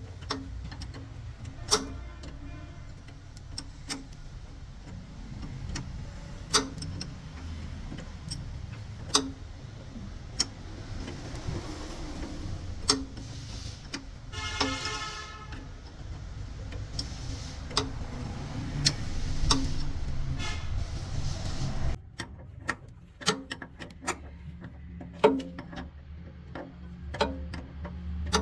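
Scattered sharp metallic knocks and clanks of hand-tool work on truck suspension parts, over a low steady rumble that cuts out about two-thirds of the way through. A short pitched tone sounds once, about halfway.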